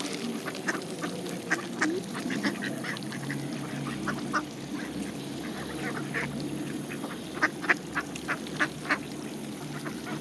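Mallard ducks and Canada geese feeding on scattered seed: many quick sharp pecking clicks over a steady low quacking chatter. The loudest clicks come near the end.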